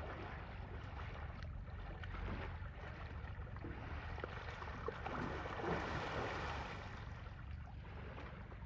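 Muddy water sloshing and splashing as Asian elephants wallow and lie down in a pool, a little louder about five to six seconds in, over a steady low rumble.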